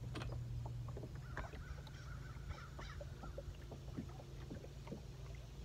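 Small boat sounds on a lake: scattered light ticks and knocks of water and tackle against an aluminium fishing boat, over a steady low hum, with a faint drawn-out high tone about one and a half seconds in.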